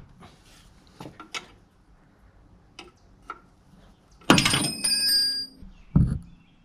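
Metal tool work on a rust-seized fuel line fitting at the fuel pump: light clicks and taps, then a loud metallic clank with ringing about four seconds in, and a dull thump near the end.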